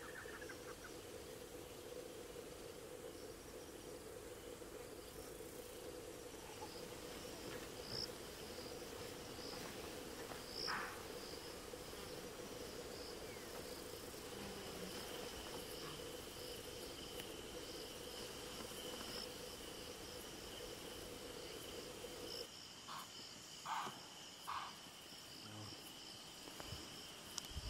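Faint, steady chirring of crickets and other insects, a continuous high trill with a second, lower insect tone joining about halfway. A low steady hum underneath stops about two-thirds of the way through, and a few short chirps stand out near the end.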